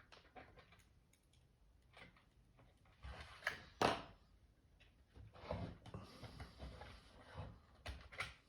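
Plastic clicking and scraping as the internals of a WD My Passport Wireless Pro are pried out of its tight plastic casing: scattered small clicks, a louder click just under four seconds in, then a stretch of scratchy rubbing.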